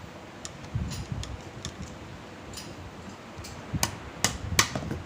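Scattered metallic clicks and knocks of hand tools working on a BMW G12 front air shock absorber, with a few low thuds about a second in and the loudest cluster of clicks about four seconds in.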